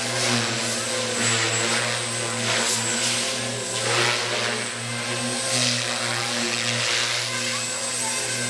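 JR Forza 450 electric RC helicopter flying hard 3D manoeuvres: the rotor blades whoosh in repeated swells and the motor whine glides up and down as head speed and blade pitch change, over a steady low hum.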